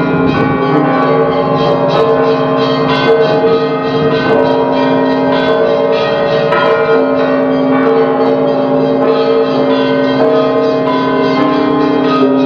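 Orthodox cathedral bells ringing in a full peal: many bells struck again and again in quick succession, their tones overlapping and ringing on.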